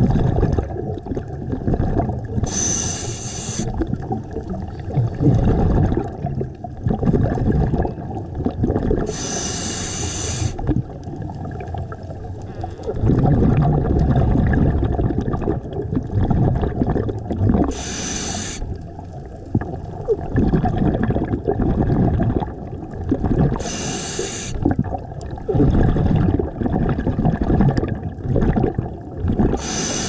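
Scuba diver breathing through a regulator underwater: a short, sharp hiss of inhaled air about every six to eight seconds, with low bubbling of exhaled air in between.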